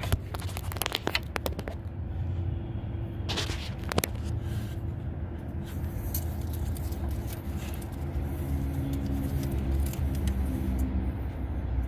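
Steady low hum of an idling vehicle engine, with a few sharp metal clicks and clinks from handled tools or parts in the first four seconds.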